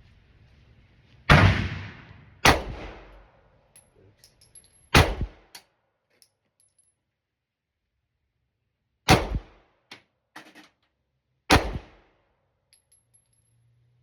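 Five pistol shots from a 9mm handgun fired at a paper target, spaced unevenly over about ten seconds, with a couple of fainter clicks between some of them.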